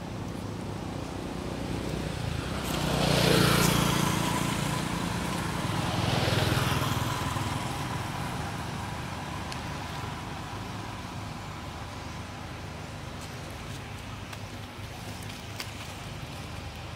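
Two motor vehicles pass by on a road, one about three seconds after the other, each swelling up and then fading away.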